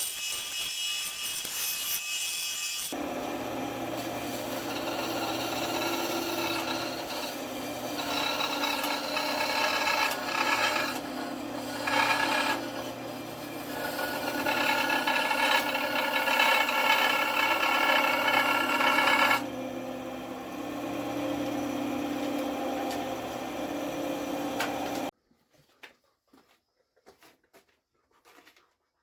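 Power-tool grinding or sanding on a motor-driven abrasive, its rasping rising and falling as the work is pressed on. It stops abruptly near the end, leaving only a few faint knocks.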